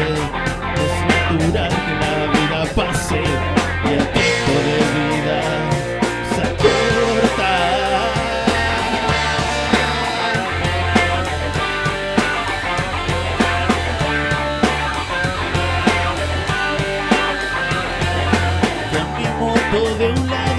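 Rock music without vocals: a guitar-led instrumental passage over a steady beat.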